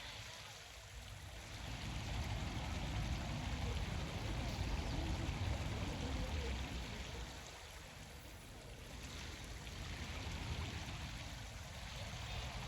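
Steady outdoor rushing noise, like running water, over a low rumble that swells and eases every few seconds.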